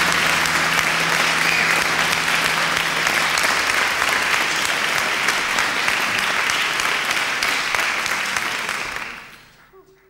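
Concert audience applauding steadily after a live band's song, a dense patter of many hands clapping that fades out near the end.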